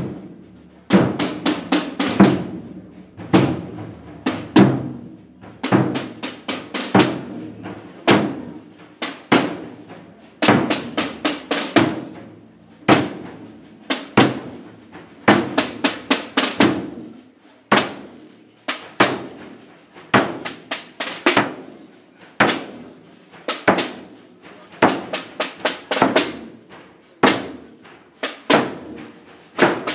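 Rope-tensioned procession drums beaten in a steady marching rhythm: clusters of sharp strokes repeat about once a second.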